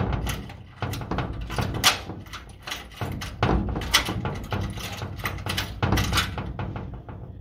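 Irregular knocks and rattles on a metal door with a lever handle, many short sharp strokes at uneven intervals over a low hum.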